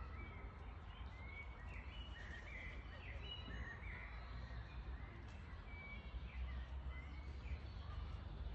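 Outdoor ambience: scattered small bird chirps over a steady low rumble.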